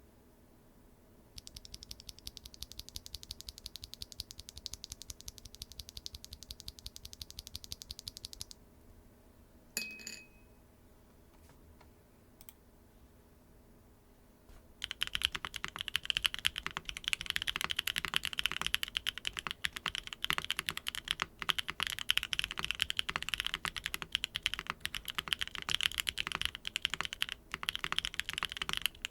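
Typing on Strawberry Cheesecake R2 tactile mechanical switches in a Neo 75 Cu keyboard with a carbon fiber plate, no foam and GMK Serica keycaps. There are several seconds of fast, even key presses, then a single louder keystroke with a brief ring about ten seconds in. Steady, busy typing starts about halfway through.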